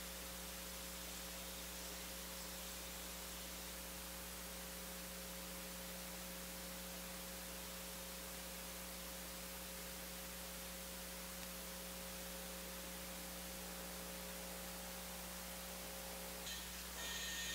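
Steady electrical hum of several held low tones over a faint hiss. Near the end, higher whining tones come in and it gets slightly louder.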